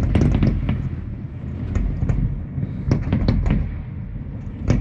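Fireworks going off: clusters of sharp bangs and crackles, several in quick succession, over a steady low rumble.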